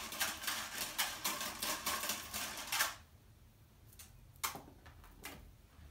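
A string of beads rattling and clicking as it is handled, a dense clatter for about three seconds, then quieter with a few lone clicks.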